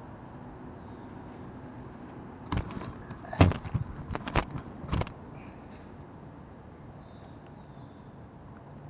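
A cluster of sharp knocks and clatters close to the microphone, lasting about two seconds and starting about two and a half seconds in, from the camera and gear being bumped while a small bullhead is handled. Under it runs a steady low hum of distant road traffic.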